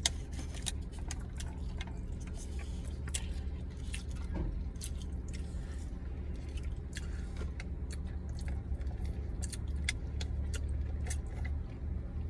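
Close-up eating sounds: chewing with many small, sharp mouth clicks, over a steady low hum from the car.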